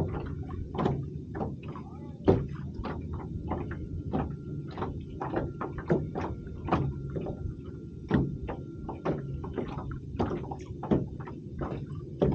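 Irregular clicks and knocks, about two a second, over a low steady hum, with a faint thin steady tone that stops about ten seconds in.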